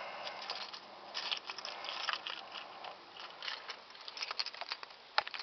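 Crackling, rustling handling noise from the hand-held camera as it is moved, with scratchy scrapes throughout and one sharp click about five seconds in. No engine running.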